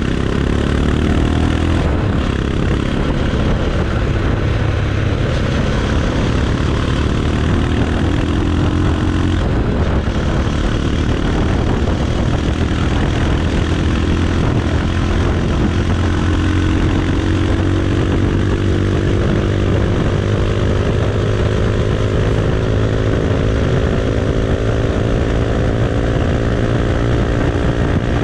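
Bajaj Pulsar 220's single-cylinder engine and exhaust under way. The pitch drops in the first couple of seconds, then climbs slowly and steadily through the second half as the revs build, over a heavy low rumble.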